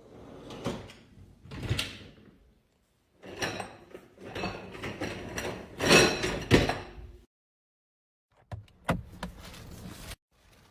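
Dishwasher racks sliding on their rails and being handled, with clattering and knocks in several short separate bursts. The loudest knocks come about six seconds in, and there are sharp clicks near the end.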